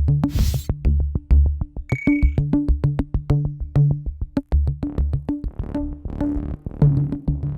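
Electronic outro music: synthesizer over a fast drum-machine beat with a heavy bass line.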